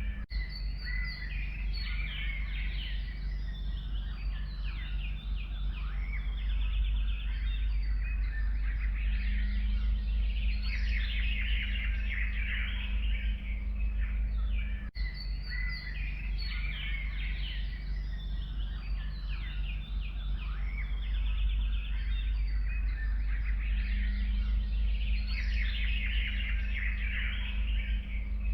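A chorus of forest songbirds chirping and trilling over a steady low rumble. The same stretch of birdsong repeats after a brief break about halfway through, as a loop.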